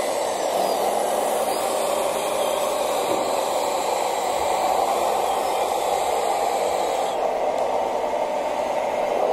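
Steady whirring noise of a radio-controlled model wheel loader's electric motors and hydraulic pump as it raises its loaded bucket.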